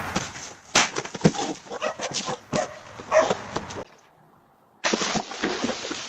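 A dog barking in short, sharp bursts, which break off for about a second past the middle.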